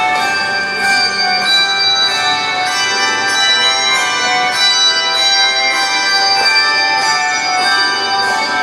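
Handbell choir playing: bell notes struck about twice a second, each ringing on and overlapping the next in a continuous chordal texture.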